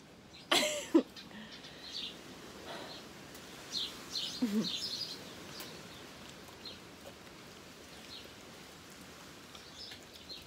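Small birds chirping in short scattered calls, with a couple of brief vocal sounds from the people chewing jelly beans: a loud one about half a second in and a short murmur about four and a half seconds in.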